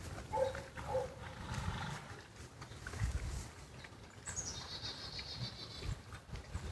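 A mini foal's coat being brushed and scratched, a low rustling with the odd thump as the foal shifts. A few short pitched calls sound in the first second, and a high warbling chirp comes about four seconds in.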